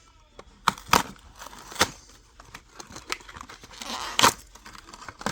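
Toy packaging being opened by hand: crinkling and tearing with several sharp plastic snaps and clicks, the loudest about four seconds in.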